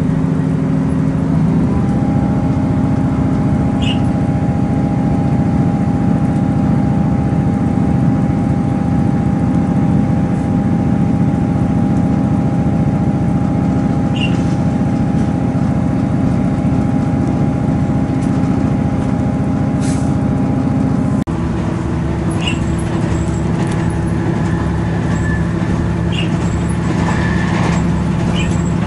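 Diesel multiple unit, a Class 158, running steadily along the line. Its engine drones under the wheel noise with faint clicks now and then. The engine note shifts about a second and a half in and changes abruptly about 21 seconds in.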